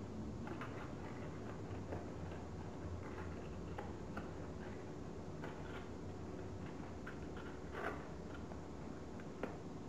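Folded paper origami modules being handled and slotted together: scattered soft crackles and taps of paper, with a sharper click near the end, over a faint steady hum.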